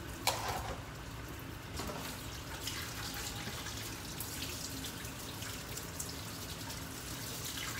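Kitchen faucet running into a stainless steel sink as crabs are rinsed and turned by hand under the stream. The water splashes steadily, with a few sharp knocks, the loudest about a third of a second in.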